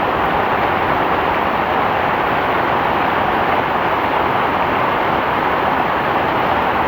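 Heavy rain falling in a steady, even hiss, with no single drops or gusts standing out.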